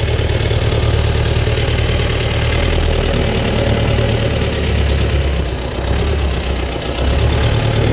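T-40AM tractor's air-cooled four-cylinder D-144 diesel running steadily, warmed up. It eases off briefly about five and a half seconds in, then picks up again.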